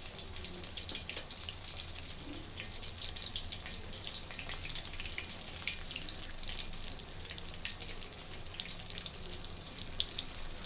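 Batter-coated green chillies (mirchi bajji) deep-frying in hot oil in a kadai: a steady sizzle full of small crackling pops.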